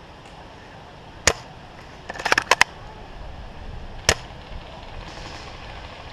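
Airsoft sniper rifle firing two sharp shots about three seconds apart, with a quick cluster of clicks between them.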